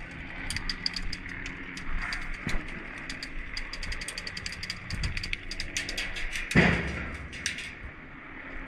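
Airsoft guns firing, heard as scattered sharp clicks and short rattling runs of shots. There is a louder scuff or knock about six and a half seconds in.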